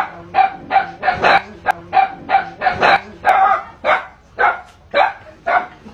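A dog barking in a rapid, even series, about three barks a second.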